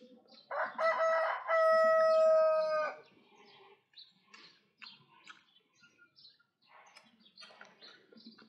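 A rooster crowing once, starting about half a second in and lasting some two and a half seconds, ending on a long held note that cuts off sharply.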